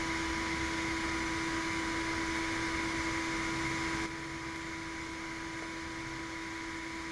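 Steady mechanical hum of a running fan or motor, with a constant low tone and a higher hiss. Part of it cuts off suddenly about four seconds in, leaving a quieter hum.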